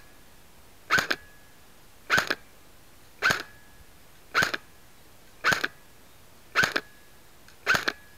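G&G Combat Machine Raider airsoft electric gun (AEG) firing on semi-automatic: seven single shots about a second apart, each a short sharp report with a brief faint ring after it.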